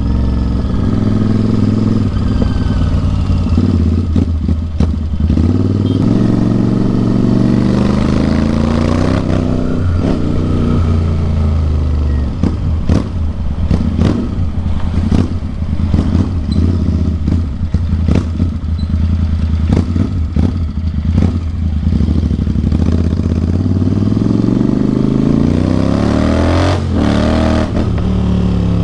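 Royal Enfield Interceptor 650 parallel-twin engine through a loud Atom full-system exhaust, heard from the rider's seat while riding. Its pitch climbs and falls as it accelerates and changes gear, with a stretch of sharp pops and crackles through the middle. Near the end a hard rev climbs steeply and drops at a shift.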